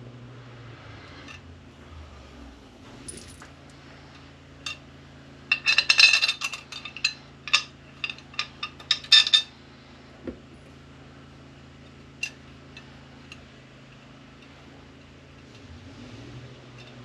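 Small metal parts and hand tools clinking and rattling as they are handled, with a quick cluster of sharp clinks about six to nine seconds in and a few single clicks around it.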